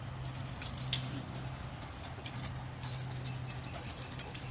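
Dogs playing on wood-chip mulch: scattered light clicks and jingles from paws and collar tags, over a steady low hum.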